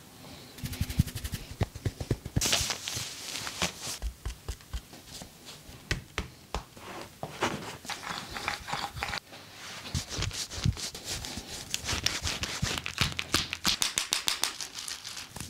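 Hand massage percussion on a person's body: sharp slaps and taps with rubbing and brushing noise between, and runs of fast rhythmic tapping, several strikes a second, near the start and again near the end.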